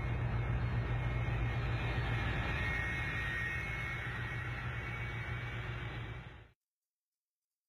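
Steady low drone and rushing noise of a car on the move, which cuts off abruptly about six and a half seconds in.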